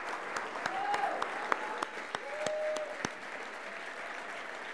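Audience applauding, with sharp individual claps standing out and a couple of short calls from the crowd; the clapping eases slightly after about three seconds.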